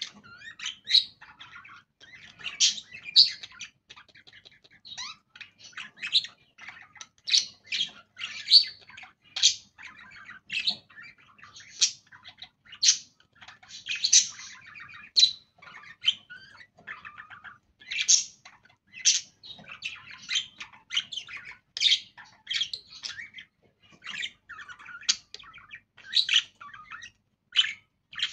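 Budgerigars chirping and chattering: a steady run of short, high chirps, a loud one about every second, with softer warbling between.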